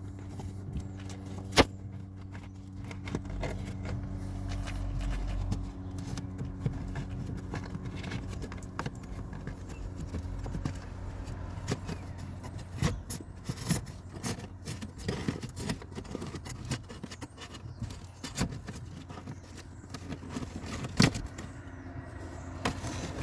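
Old cabin pollen filter being pinched and worked out of its housing behind the glovebox, with scraping, rustling and irregular plastic clicks and knocks, the sharpest about a second and a half in and again near the end, over a steady low hum.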